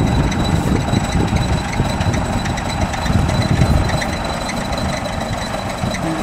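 Crawler bulldozer's diesel engine running steadily under load as its blade pushes a heap of earth.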